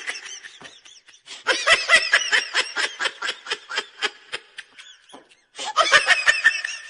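Hearty laughter in quick repeated pulses, about four or five a second, breaking off briefly twice.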